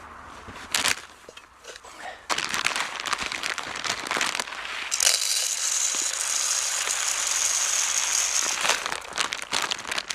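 Crinkling and rustling handling noise with scattered sharp clicks, then a steady hiss from about five seconds in that stops shortly before the end.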